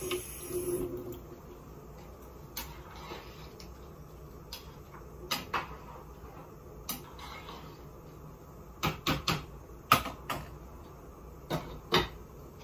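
Irregular knocks and clinks of dishes and utensils being handled at a kitchen counter, with a cluster of sharper knocks from about nine to twelve seconds in.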